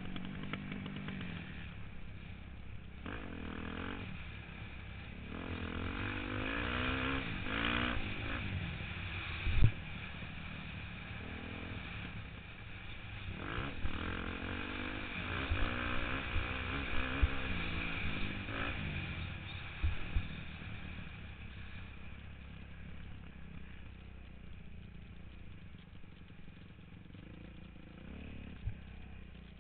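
Motocross dirt bike engine revving up and falling back again and again as it is ridden around the track, heard from a helmet-mounted camera, with a couple of sharp knocks. In the last several seconds the engine runs quieter and steadier as the bike slows.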